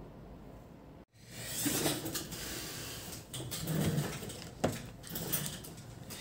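Quiet room tone that breaks off about a second in, followed by handling noise and several sharp clicks as a digital multimeter's rotary selector switch is turned over to the ohms range.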